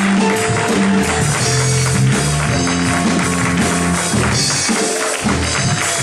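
Live church worship music: a bass line of held notes under a steady jingling tambourine, with the choir clapping along.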